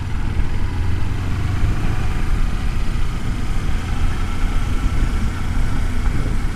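Kawasaki Versys-X 300 parallel-twin engine running steadily under way, mixed with wind noise, picked up by a microphone inside the rider's helmet.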